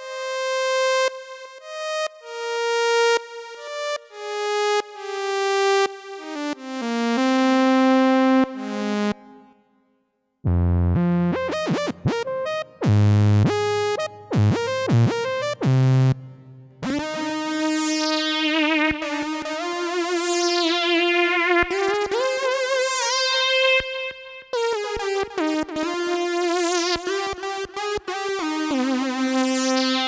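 Roland Fantom synthesizer preset tones played one after another: a bright, buzzy lead in a falling line of single notes, then a deep bass part after a short gap about ten seconds in, then from about seventeen seconds a held synth sound with a resonant filter sweeping down over and over.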